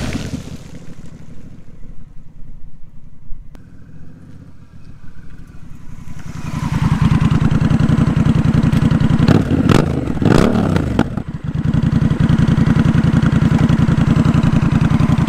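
Honda CMX1100 Rebel's parallel-twin engine through a Radiant Shorty GP slip-on exhaust: it passes close by and fades. About six seconds in it pulls up and runs at idle with an even low pulse. It is revved briefly a couple of times around ten seconds in, then settles back to idle.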